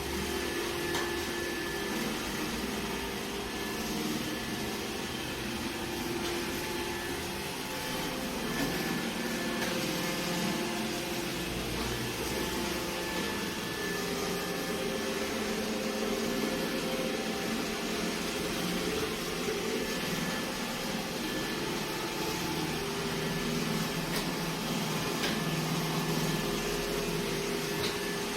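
iRobot Roomba j7+ robot vacuum running: a steady motor and suction-fan whir with a faint whine.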